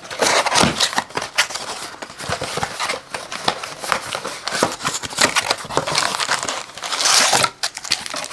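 Plastic wrapping and trading-card pack wrappers crinkling and tearing as a retail blaster box of basketball cards is opened, a dense run of crackles with a louder stretch about seven seconds in.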